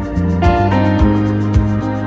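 Background music with a steady beat, about two beats a second, under sustained keyboard-like chords.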